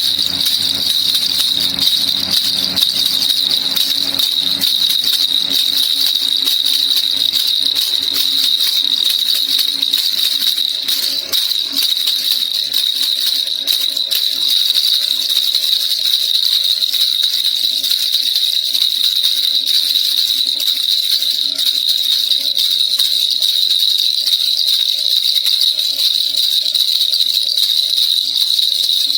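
Baby rattle shaken continuously, a steady, dense jingling of rapid small clicks with a bright high ring.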